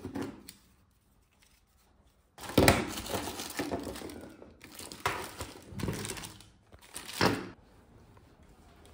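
Plastic packaging crinkling as bagged parts are handled. There is a brief rustle at the start, then after about two quiet seconds a run of loud crinkling rustles lasting about five seconds.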